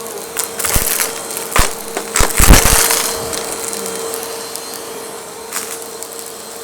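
Vacuum cleaner running with a steady hum while small hard objects clatter and rattle up through it in a quick flurry, loudest about two and a half seconds in, then easing back to the motor alone.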